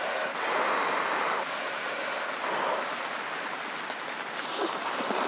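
Ramen noodles being slurped in several noisy draws, the longest and loudest near the end, over steady rain on the tent.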